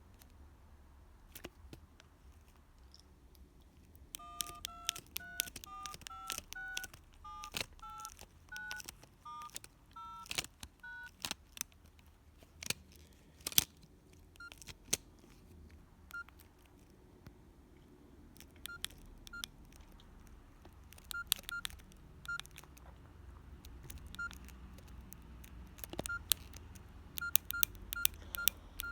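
Nokia 6120 classic keypad: a quick run of about fifteen two-note dialing tones as digits are keyed in, each with a button click. After a pause come single short key beeps with clicks at irregular intervals, coming faster near the end.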